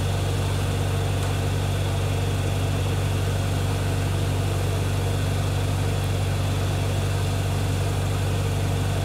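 Lincoln SA-200 engine-driven welder running steadily under a light load while it powers a TIG arc, an even hum with no change in speed.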